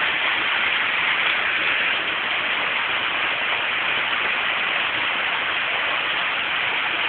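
Heavy rain pouring down, a steady dense hiss that holds even throughout.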